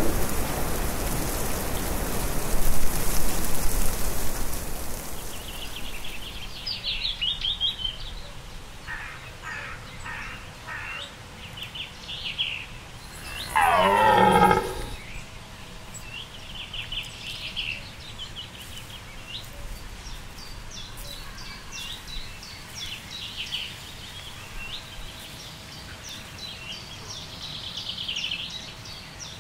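Rain falling for the first few seconds, then small birds chirping. About fourteen seconds in, a red deer stag gives one loud rutting roar lasting about a second and a half, and the chirping carries on after it.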